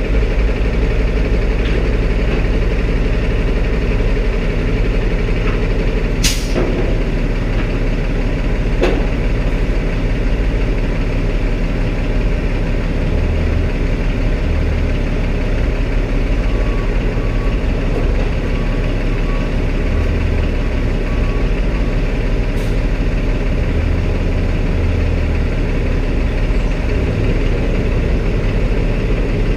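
Peterbilt semi truck's diesel engine idling steadily. A short sharp hiss comes about six seconds in, and faint evenly spaced backup-alarm beeps sound from about sixteen to twenty-two seconds in.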